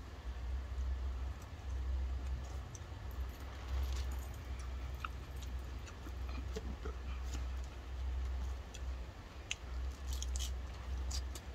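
A fork clicking and scraping through lettuce in a plastic salad container, with many small scattered ticks over a steady low rumble; near the end, a bite of salad is taken and chewed.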